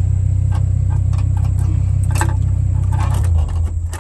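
Kato HD308US-7 excavator's diesel engine idling steadily, heard from inside the cab, with light clicks over it. Near the end the engine drone changes pitch and falls away.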